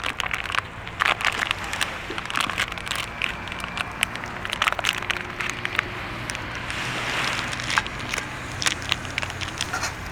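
Wood bonfire crackling, with frequent sharp pops and snaps and a brief hiss about seven seconds in.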